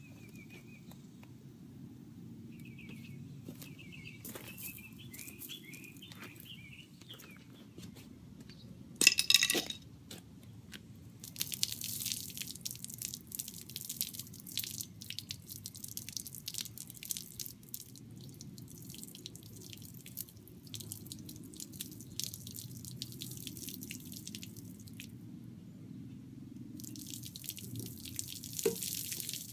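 Water poured from a cooking pot spattering over a dented plastic car bumper, in uneven splashes over about a dozen seconds and again near the end. About nine seconds in there is one short, loud sudden sound.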